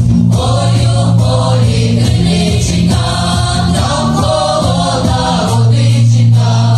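A song sung by two men on microphones, joined by a women's choir, over an amplified instrumental backing with a steady bass line.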